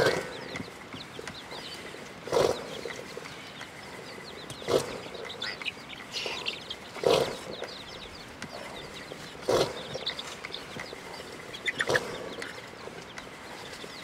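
Traditional rope-spun wooden churn stick turning back and forth in a clay pot, churning curd into butter for ghee, with a regular knock about every two and a half seconds. Faint high chirping runs underneath.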